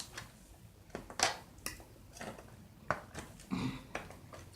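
Close-up chewing and lip-smacking: irregular short, wet mouth clicks and smacks as food is eaten.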